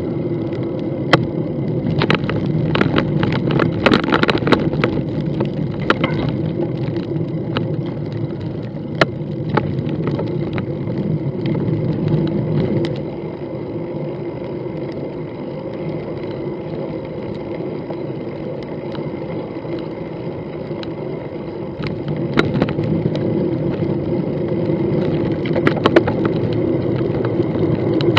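Bicycle rolling on a paved path: a steady rumble of tyres and road vibration, with sharp clicks and rattles from bumps, bunched in the first few seconds and again near the end.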